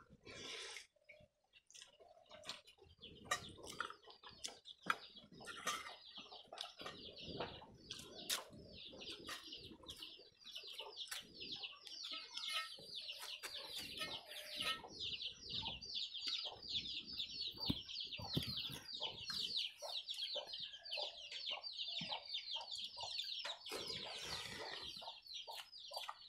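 Chicks peeping in a rapid, continuous run of short high chirps, beginning a few seconds in, with scattered clicks and knocks of someone eating from steel dishes.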